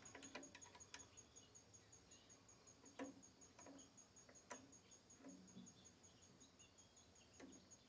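Near silence, with a few faint scattered metal clicks from a hand tool working the slide cap on a Briggs & Stratton LO206 carburetor. Behind them runs a very faint, high, even ticking about four times a second.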